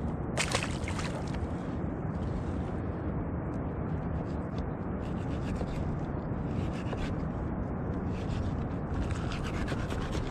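Short, crisp scraping and rubbing strokes over a steady rushing background.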